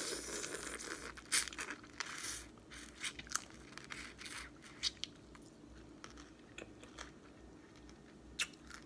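Crawfish being eaten close to the microphone: a slurping suck from the head at the start, then scattered sharp cracks and crunches of the shell along with chewing.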